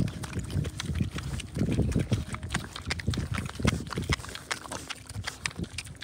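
Mangalitsa piglets eating at close range: wet chewing and smacking clicks throughout, mixed with low grunts, the loudest about halfway through the first two seconds and again past three and a half seconds.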